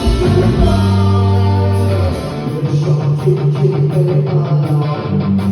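Band playing a pop-rock song with bass and electric guitar. About two seconds in, the guitar switches from held chords to quick, even strumming over the bass line.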